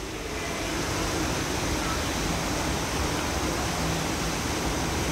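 Outdoor plaza fountain with many jets splashing steadily, with a faint low hum underneath.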